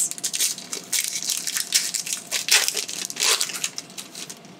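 Foil wrapper of a Pokémon TCG booster pack crinkling and crackling as it is torn open and handled, in irregular rustling bursts that die down near the end.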